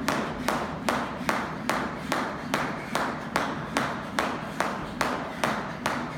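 Jump rope slapping the rubber-matted gym floor on each turn, in a steady rhythm of about three slaps a second.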